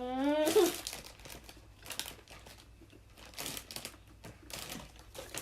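Food packaging crinkling in a series of short rustles, after a brief voice sound right at the start.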